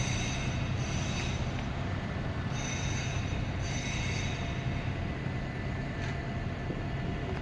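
West Midlands double-decker bus running past close by with a steady low engine hum, while a high metallic squeal comes and goes several times in the first four seconds.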